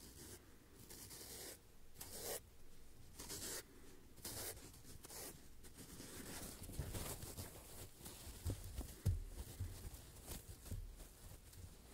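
Foam being scratched and squished by hand: a run of short scratchy strokes, roughly one a second, then softer handling with low thuds from about halfway through.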